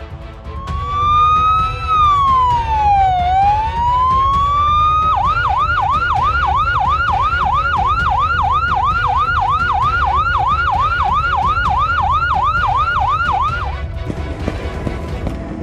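Police siren: a slow wail rising, falling and rising again, switching about five seconds in to a fast yelp of about four sweeps a second, over a steady low rumble. The siren cuts off near the end, leaving a brief hiss.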